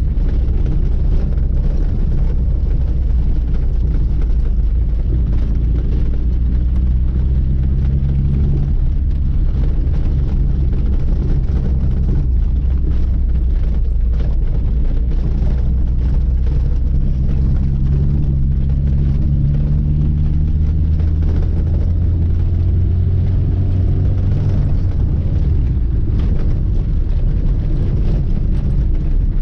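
A 1980 Lada 2106's four-cylinder engine running under way with a heavy low rumble of road noise. Its pitch climbs and drops back twice as the car pulls through the gears, and starts climbing again near the end.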